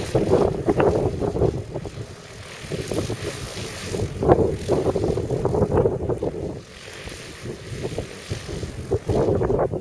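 Autogyro's engine and pusher propeller running as it taxis over grass, a rough rumble that swells and fades several times.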